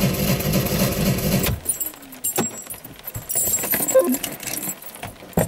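The 2-litre engine of a 2006 Opel Astra Coupe Bertone Edition, heard from inside the cabin, idles steadily and then cuts off abruptly about a second and a half in as it is switched off. Scattered clicks and small rattles follow in the quiet car.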